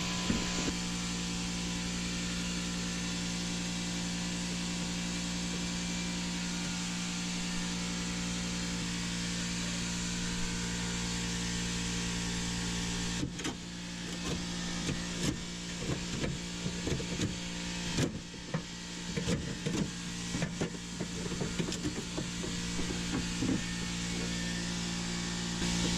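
Work on a car door's power-window mechanism: a steady mechanical whir for about the first half, then it stops and there are irregular clicks and knocks of hand work on the metal door parts.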